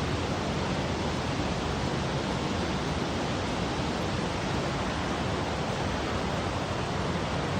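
Cave waterfall: a steady, unbroken rush of falling water.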